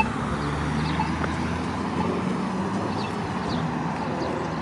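Road traffic running through the intersection, engines and tyres making a steady noise. Over it, a Polara iNS3 crosswalk push-button ticks faintly about once a second.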